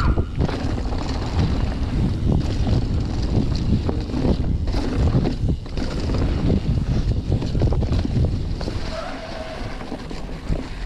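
Wind buffeting the microphone of a mountain bike descending fast, with the bike rattling and knocking over rough ground and jumps. It eases off about nine seconds in.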